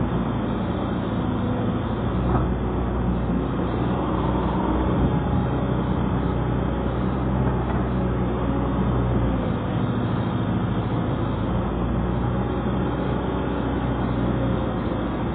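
Excavator diesel engine running steadily, with a light knock about two and a half seconds in.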